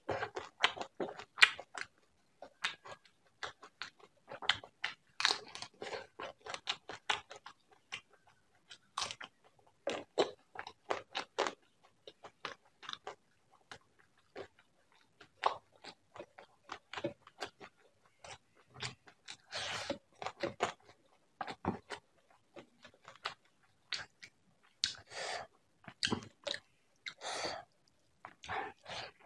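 Close-miked mouth sounds of a person chewing a mouthful of prawn curry and rice: many quick, irregular crisp clicks coming in bursts, with short pauses between.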